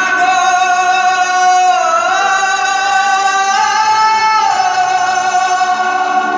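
Recorded Hindi film song played over the hall's loudspeakers: a male singer holds long sustained notes, the pitch stepping up about two seconds in and back down a couple of seconds later.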